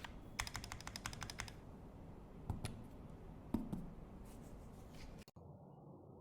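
Crin FRL mechanical keyboard being typed on: a quick run of keystrokes in the first second and a half, then a few scattered single key presses before the sound cuts off abruptly.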